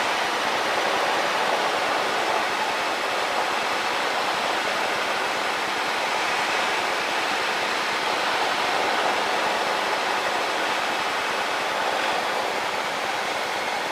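Steady cockpit noise of a Cessna 152 in flight on final approach: engine, propeller and airflow blending into an even roar with no change in pitch.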